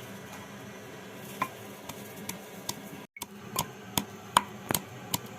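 Sharp, irregular knocks, about two to three a second, from ginger and garlic being worked by hand into a paste in a kitchen.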